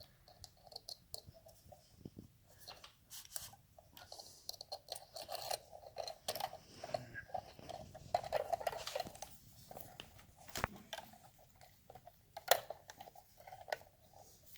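Irregular metallic clicks and scraping from hand tools turning the clutch spring nuts down onto their studs on the clutch pressure plate, with a denser stretch of scraping in the middle and a sharp click near the end.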